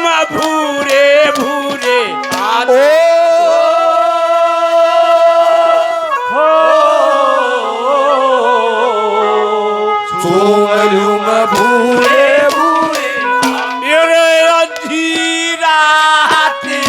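Haryanvi ragni folk music played live: a male singer draws out long held notes that slide between pitches, over instrumental accompaniment with drum strokes.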